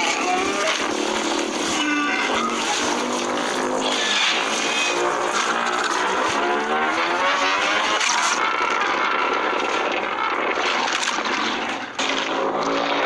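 Giant-monster roar sound effects: several layered roars and growls whose pitch slides up and down, running on without a break over a rough, noisy rumble.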